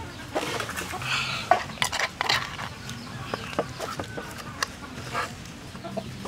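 Chickens clucking nearby, with scattered sharp clicks and taps from a metal spoon and the fish being handled in a steel wok.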